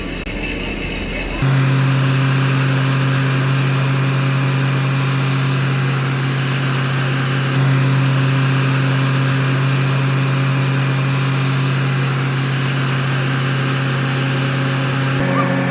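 Diesel engines of road-paving machinery running at a steady speed, a constant low drone with a noisy haze above it. The level jumps suddenly about a second and a half in and again halfway through.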